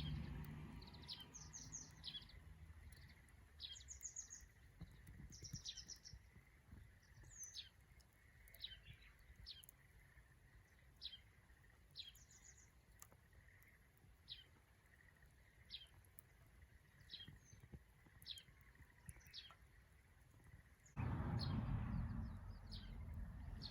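A small songbird chirping over and over: short, high, down-slurred notes about once a second, with a few faint clicks beneath. Near the end a louder low rushing noise starts suddenly.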